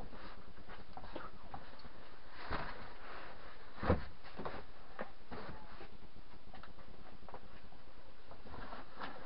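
Foam bed cushions being handled and set into place on a campervan bed frame: soft rustling and light knocks, with one louder thump about four seconds in.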